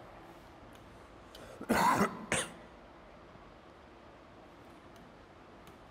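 A man coughing twice about two seconds in, the first cough longer than the second.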